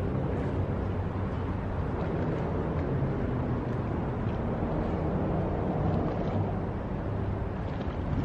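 Steady low motor rumble, as from a passing boat or traffic engine, with outdoor air noise.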